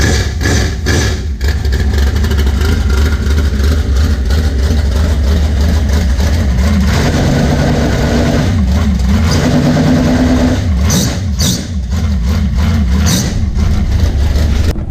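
A loud engine running, its pitch rising and falling a few times around the middle, with several sharp clicks a couple of seconds later.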